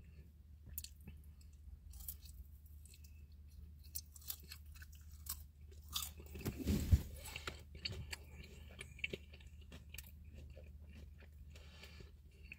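A person chewing crispy breaded pickle fries close to the microphone, with scattered small crunches and a louder stretch of chewing about six to seven seconds in.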